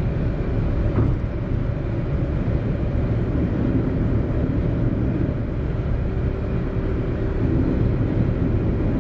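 Steady road and engine noise heard inside a car driving on a highway, a low, even rumble.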